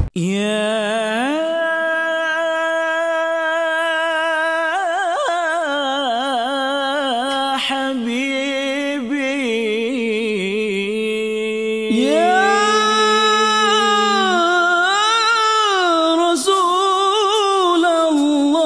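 Unaccompanied solo voice singing a slow, wordless Islamic nasheed opening, with long held notes and wavering, ornamented melismatic runs. A new, slightly louder phrase begins about twelve seconds in.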